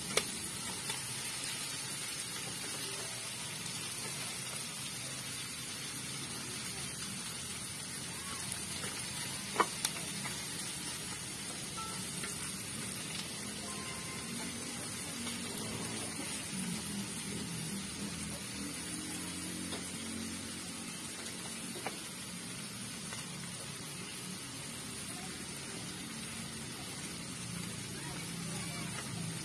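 Steady hiss of chicken cooking on a stove, with a pot of broth simmering beside it. A metal ladle clinks sharply against the pot right at the start, twice in quick succession about ten seconds in, and once more lightly later.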